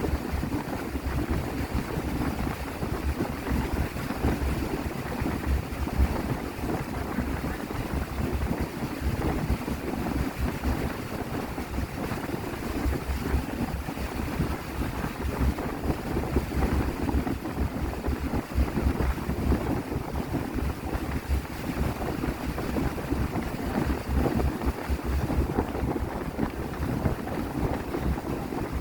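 Small motor yacht under way: a steady rush of engine and water, with wind gusting on the microphone.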